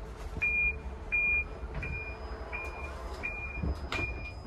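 Electronic warning beeper of a driverless Heathrow Pod sounding as its door closes: six short, identical high beeps about two-thirds of a second apart, the first two loudest. A low thud comes just before the last beep.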